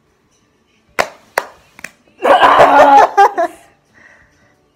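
Hand claps of a two-person clapping game: three sharp claps, the first about a second in, then a loud burst of voices with a few more claps mixed in.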